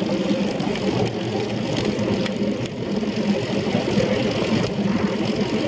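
Steady rushing and rumbling from riding a track bicycle at speed: tyres rolling on the track and wind buffeting the bike-mounted camera.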